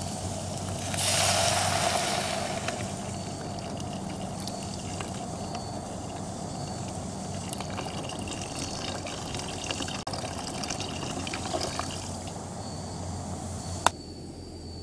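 Water poured from a container into a pot of sautéed onions and shallots on a portable gas stove, over the burner's steady rush, with a louder hiss about a second in. A sharp click sounds near the end.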